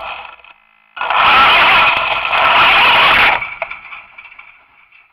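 Radio-controlled toy car's motor whining, then running flat out for about two and a half seconds with a loud rush of tyre and ground noise, before winding down to a fading whine.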